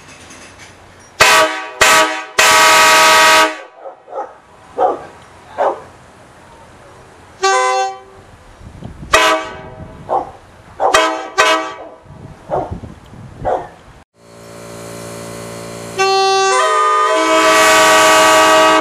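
Multi-chime locomotive air horns blown in turn. Three loud blasts come at the start, then a string of short toots, then one long, loud blast near the end.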